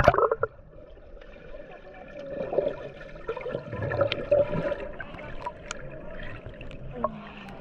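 Pool water sloshing and splashing close by, irregular and swelling in the middle.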